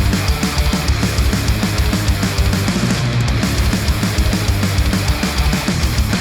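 Heavy rock music with a fast, dense drum beat, played through studio headphones and picked up by measurement microphones.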